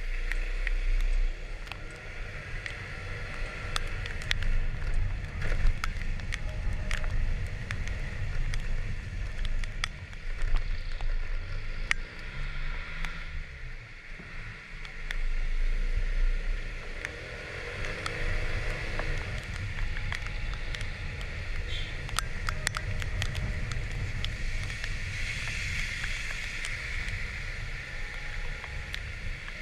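Kymco Like 125 scooter riding in the rain: its single-cylinder four-stroke engine running, with tyres hissing on the wet road and wind on the microphone. Scattered sharp ticks sound throughout.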